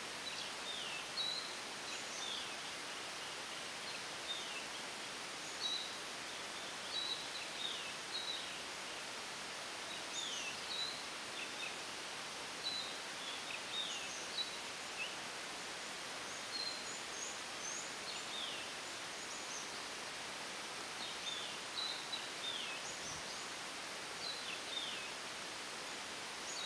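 Birds calling in the forest: many short, high notes, each sweeping downward, come every second or so over a steady background hiss.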